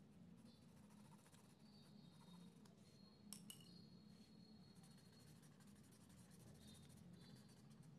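Faint scratching of graphite shading being worked onto drawing paper, over a low steady background hum, with one light click about three seconds in.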